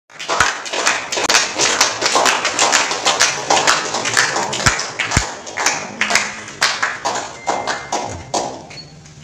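A small group of people clapping close by, fast and uneven, dying away toward the end.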